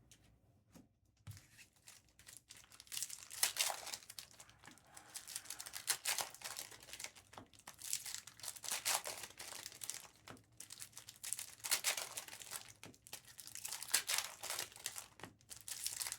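Foil trading-card pack wrappers being torn open and crinkled, in irregular crackling bursts that start about a second in.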